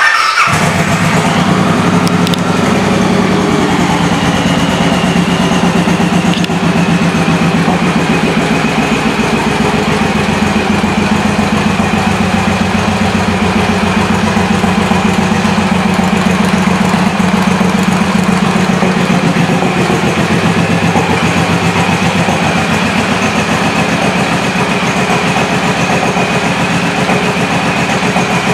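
Suzuki Boulevard C109R's large V-twin engine, fitted with Cobra exhaust pipes, comes in suddenly at the start and settles into a steady idle.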